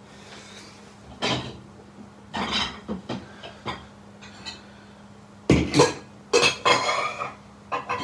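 Dishes clattering and clinking as they are handled at a dishwasher, in a run of separate knocks, the loudest about five and a half seconds in.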